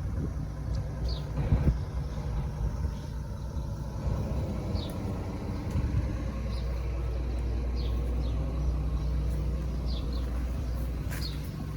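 A steady low engine rumble, with short high bird chirps every second or so.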